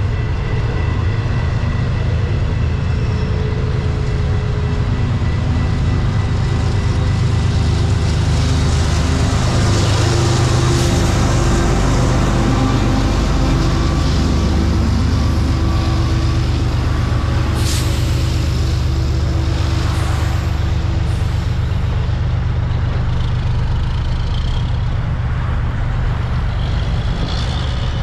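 Heavy diesel trucks idling at a level crossing with a steady low rumble, with short air-brake hisses about two-thirds of the way through.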